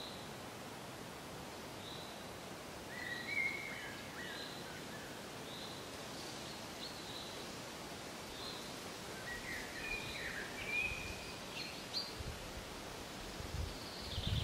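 Outdoor ambience: a steady hiss with small birds calling in short chirps every second or so, and a few low rumbles near the end.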